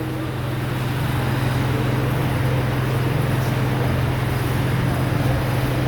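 A steady low hum under a constant, even hiss, with no breaks or sudden sounds.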